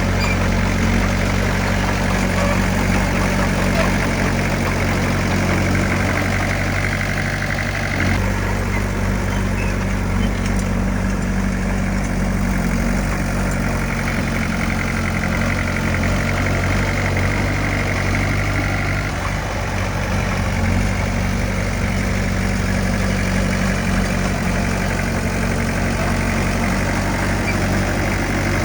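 Diesel engine of heavy earthmoving equipment running steadily, its pitch and load shifting about eight seconds in.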